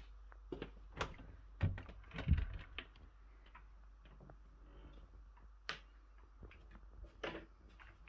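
Scattered sharp clicks and knocks in a small room, with two heavier thumps about two seconds in.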